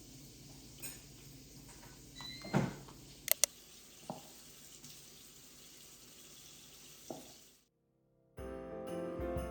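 Faint steady room noise with a few light clicks and knocks, two of them in quick succession about a third of the way in. It cuts out suddenly near the end, and after a moment of silence music comes in.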